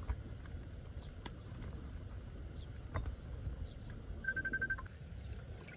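Soft clicks and taps of raw pig offal being handled in woven bamboo baskets over a steady low rumble of wind. A little after four seconds in, a bird gives a short rapid high trill of about eight quick notes.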